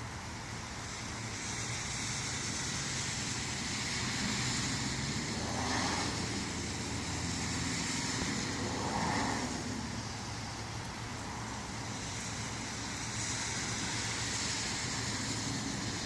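Steady hiss of rain during a thunderstorm over a low steady hum. The hiss swells and fades a few times, with brief brighter swells about six and nine seconds in.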